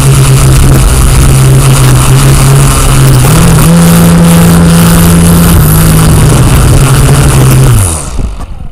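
Small engine running loud and steady, its pitch stepping up about three seconds in as it is revved, easing back down, then winding down in pitch and stopping near the end.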